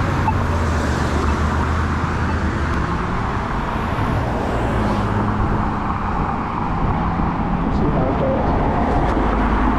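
Wind rushing and buffeting over an action-camera microphone while riding an electric scooter: a loud, steady rumbling noise, with a faint steady hum joining about halfway through.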